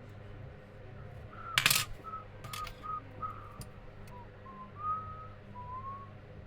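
A person whistling a string of short, soft notes, some sliding in pitch. A sharp metallic click about one and a half seconds in, then a few lighter ticks: small metal parts or tools set down on the bench.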